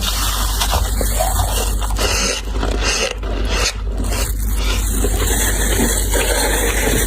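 Hands scraping dry frost off the inside of a deep freezer: a continuous scraping and rubbing of powdery ice, with a brief let-up near the middle.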